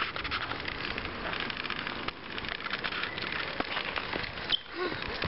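Small tyres of a child's balance bike rolling over a wet, gritty path, making a dense crackle of fine clicks.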